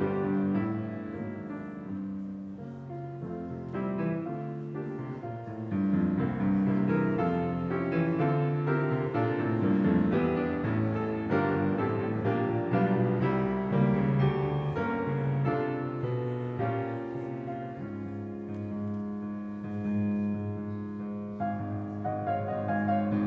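Piano playing a chordal classical-style piece, with some chords held longer in the second half.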